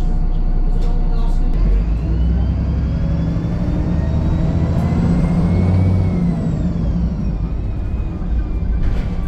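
VDL SB200 Wright Pulsar 2 bus's diesel engine pulling away, its note stepping up about a second and a half in, with a whine that climbs until about six seconds in and then falls as it eases off.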